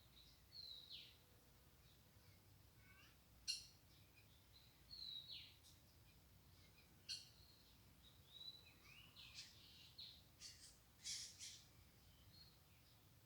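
Small birds calling: sharp single chips and short whistles that slide downward in pitch, scattered every second or so over faint outdoor background noise.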